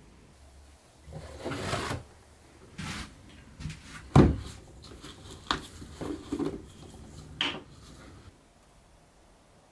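Workbench handling noises: a brief scrape about a second in, then a string of light knocks and clicks, the sharpest about four seconds in.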